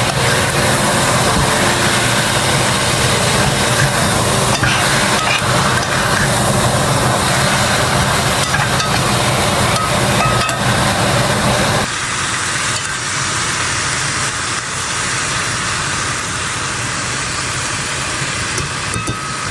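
Pork steak frying in a pan with a steady sizzle. A low hum underneath drops away about twelve seconds in.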